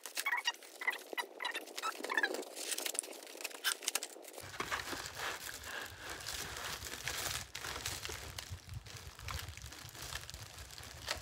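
Rustling and crinkling of plastic and paper packaging being handled and unwrapped, with many irregular clicks and crackles, busiest in the first few seconds.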